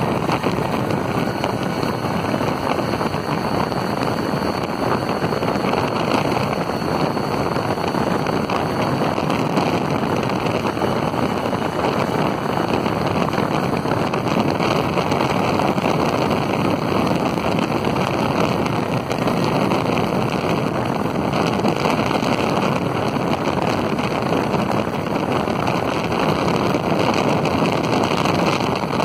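Wind rushing over the microphone of a moving Suzuki AX100 motorcycle, with its two-stroke single-cylinder engine running underneath at a steady road speed. The noise is loud and even, without breaks.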